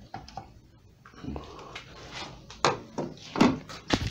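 Plastic clicks and knocks from a VW Golf's door mirror housing as its cover is being prised off by hand, with a few sharp clicks in the second half, the loudest near the end.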